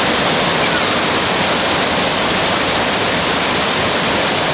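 Fast, shallow river water rushing over and around boulders in rapids: a steady, loud, even rush.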